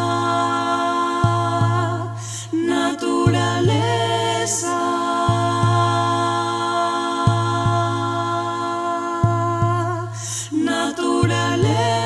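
Song music: long held chords with wordless voices that change every few seconds, over a low bass beat that returns about every two seconds.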